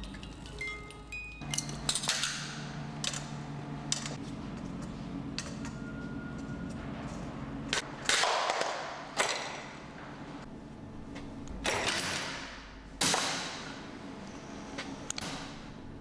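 A Rube Goldberg kinetic sculpture running. Balls and parts make scattered clicks and knocks along its tracks, with a couple of brief chime-like tones. There are three louder rushing clatters, about eight, twelve and thirteen seconds in, each dying away over about a second, over a steady low hum.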